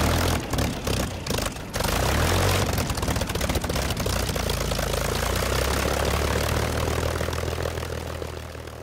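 Propeller aircraft piston engine sputtering unevenly for about two seconds, then catching and running at a steady drone that fades out near the end.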